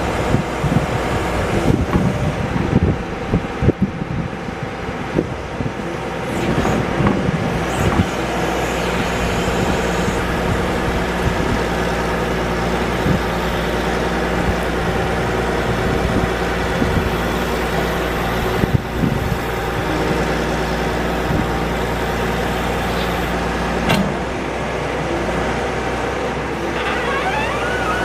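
John Deere 310D backhoe's diesel engine running steadily under load as the hydraulic boom and bucket are worked. A few knocks and clanks come in the first several seconds, and brief rising and falling squeaks come near the end.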